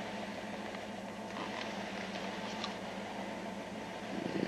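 Steady low mechanical hum with hiss, and a brief louder rustle just before the end.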